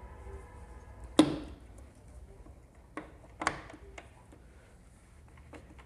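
Metal knocks and clunks from a clutch housing being fitted onto an old Bajaj Pulsar engine: one sharp knock about a second in, then a few lighter knocks around three to four seconds in.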